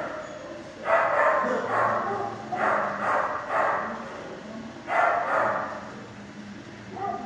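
Dogs barking in short bursts in the shelter kennels: one bark about a second in, a cluster around three seconds, and another pair at about five seconds.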